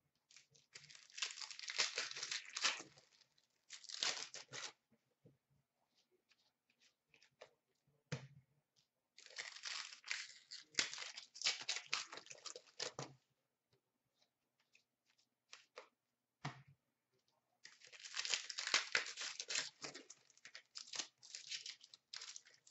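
Trading-card pack wrappers being torn open and crinkled, in four bouts of crackling with scattered light clicks from cards being handled in between.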